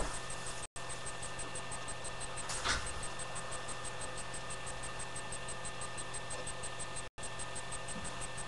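Room tone through a webcam microphone: a steady electrical hum and hiss, with one faint brief knock or rustle about two and a half seconds in and two split-second dropouts.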